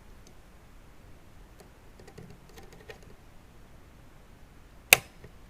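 Faint small clicks of parts being handled, then about five seconds in a single sharp, loud click as the retaining washer snaps onto the Beocord 9000's pinch roller shaft.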